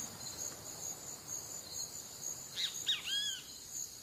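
Forest ambience: insects trilling in a steady, high, pulsing chorus, with a bird giving a few short sweeping calls about two and a half to three and a half seconds in.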